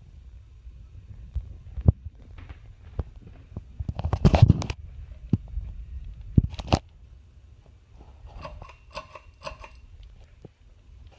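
Hampton Bay Bay Island ceiling fan running with a steady low rumble. Scattered clicks and knocks sound over it, loudest in a cluster about four seconds in, and a few short pitched blips come near the end.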